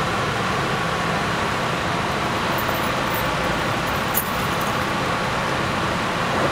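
Steady road-traffic and vehicle engine noise, with no clear single event.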